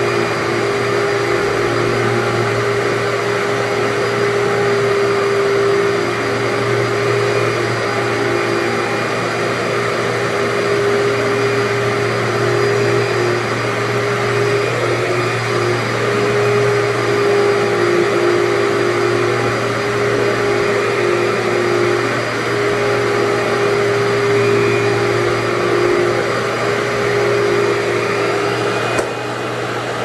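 Commercial upright vacuum cleaner running steadily on carpet, its motor giving a constant drone with a steady pitch. There is a single click near the end.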